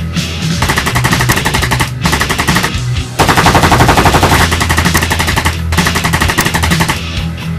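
Automatic gunfire in rapid bursts, broken by a few short pauses, over background music with a steady low bass.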